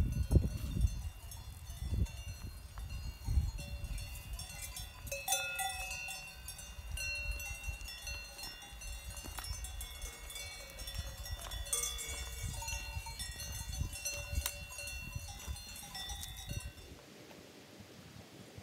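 Many cowbells on grazing livestock clanking and ringing irregularly, several pitches overlapping, over a low rumble of wind on the microphone. The bells stop abruptly near the end.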